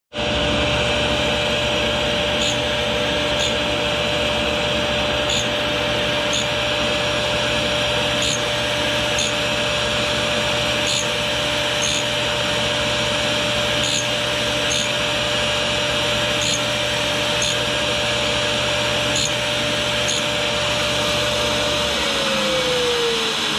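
Toolpost grinder's electric motor and cup wheel running with a steady whine and hiss while grinding a lathe tool bit, with faint ticks about once a second. About 22 seconds in the grinder is switched off and the whine falls in pitch as the wheel spins down.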